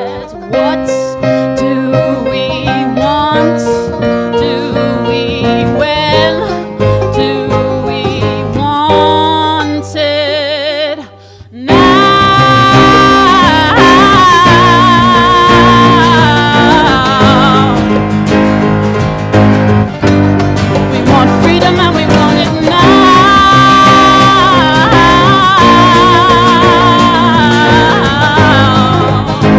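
Live song: a sung melody with vibrato over instrumental accompaniment, softer for the first ten seconds or so, then after a brief dip the full accompaniment comes in much louder about twelve seconds in.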